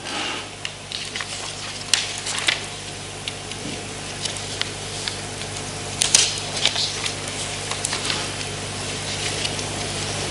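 Sheets of paper rustling and crackling as they are handled and shuffled close to a lectern microphone, with sharper crinkles about two seconds in and again about six seconds in, over a steady low electrical hum.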